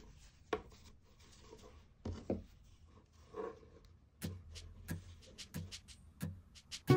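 Quiet handling sounds from fabric being pressed into a metal purse clasp frame: soft rubbing, a few small clicks and a couple of dull knocks. This is followed by a run of sharp clicks in the last few seconds as scissors trim the fabric.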